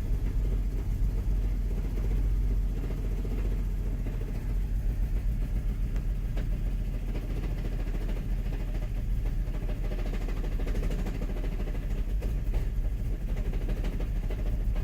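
Volkswagen Golf Mk5 GTI's 2.0-litre turbocharged four-cylinder idling roughly on a cold start, with a steady low rumble that flutters unevenly. The rough idle is still there after new front and rear PCV valves.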